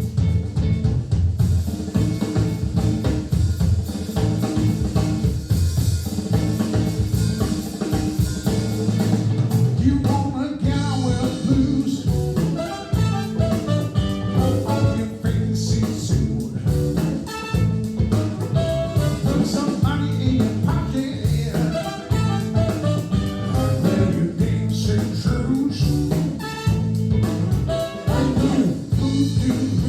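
Jazz-style music with a drum kit and a steady bass line played back through Monitor Audio Monitor 3 three-way floor-standing speakers, with a melody coming in about ten seconds in.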